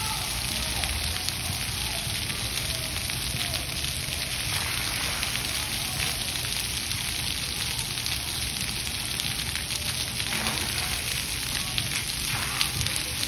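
Splash pad water jets and a dome fountain spraying, with water pattering steadily onto the wet pad.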